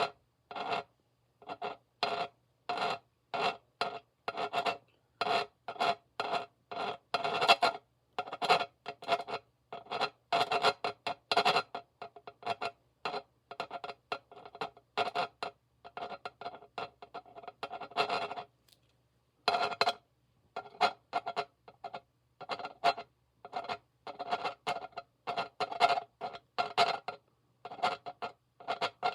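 Scratching in short strokes, two or three a second, each with a faint ringing tone in it and a silent gap between strokes. There is a longer pause of about a second about two-thirds of the way in.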